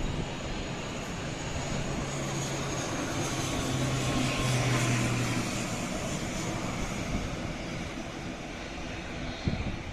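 ATR turboprop airliner passing on its landing approach: engine and propeller noise that swells to a peak about four to five seconds in, with a low steady hum under it, then eases off.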